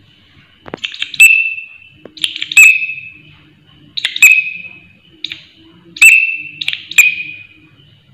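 A green katydid calls loudly with about seven harsh, shrill chirps, roughly one a second. Each chirp is a crackling rasp that trails into a short, slightly falling note.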